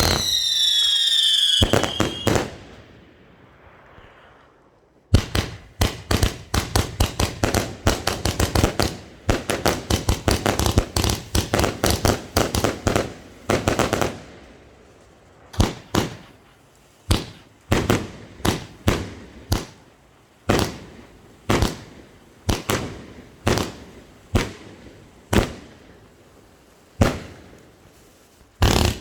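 Funke firework battery firing. It opens with a whistle falling in pitch for about two seconds that ends in a bang. A few seconds later comes a fast volley of shots, several a second, which thins out about halfway through to single shots roughly once a second.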